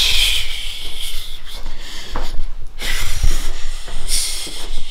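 Handling noise from a handheld camera: hands or fabric rubbing over the microphone as it is carried, a rough hiss with low rumbling and a few dull knocks.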